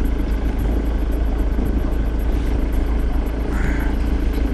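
Ford Mondeo Mk3 2.0 TDCi four-cylinder diesel engine idling steadily.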